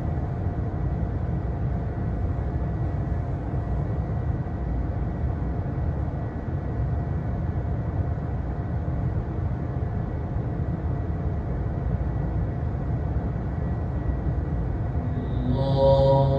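Steady rushing drone of an electric fan's airflow, with a faint steady hum under it. Near the end, a man's voice begins reciting.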